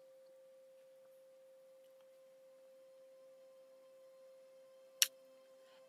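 Near silence under a faint steady tone in the recording, with a single sharp mouse click about five seconds in.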